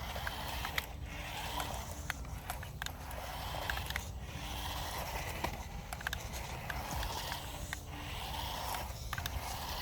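Small electric motor and gearbox of a toy 4x4 RC rock crawler whining in short on-off bursts as it is driven, with scattered clicks and scrapes over a steady low rumble.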